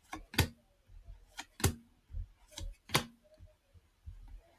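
Trading cards being flicked and slid past one another in the hand: a run of short, sharp card snaps, roughly one or two a second.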